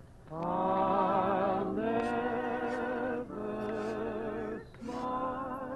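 Music played from a vinyl record on a turntable: a voice singing four long held notes with wide vibrato, separated by short breaths.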